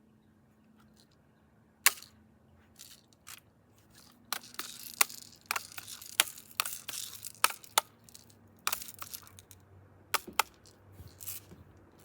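Handling noises from a BB gun: a string of sharp clicks and rattles with some rustling, one loud click about two seconds in and a dense flurry through the middle.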